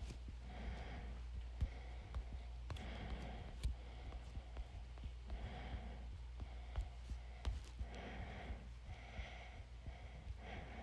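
A person's faint breathy sounds recurring about once a second, with scattered sharp clicks, over a steady low electrical hum.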